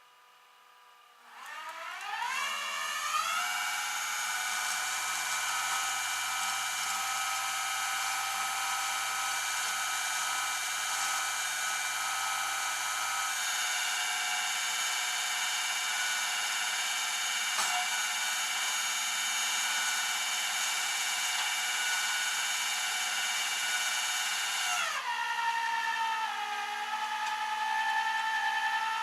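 Power tool motor spinning up with a rising whine, running at a steady high speed, then settling to a lower speed about 25 seconds in and running on.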